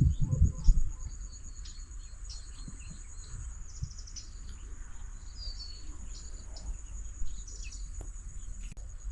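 Insects trilling steadily in a high, even drone, with birds chirping briefly now and then, one call gliding down in pitch near the middle. A few low thumps in the first second are the loudest sounds.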